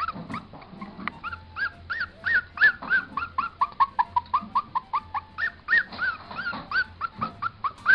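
Papillon puppy about a month old whimpering in a long run of short, high-pitched cries, several a second. The cries drop lower in pitch partway through, then rise again.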